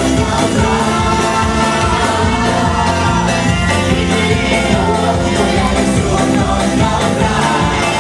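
Loud rock-style song with singing over a steady driving beat.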